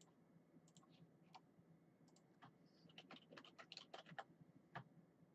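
Faint, quick, irregular clicking: a run of about a dozen light clicks between about two and five seconds in.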